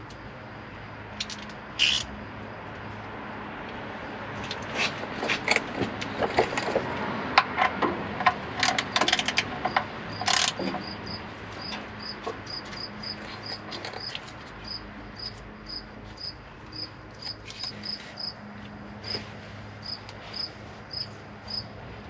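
A socket ratchet clicking in quick runs, with metal clinks, as the oil-pan drain plug is threaded back in and tightened. From about halfway on, a cricket chirps steadily, about two chirps a second, over a faint low hum.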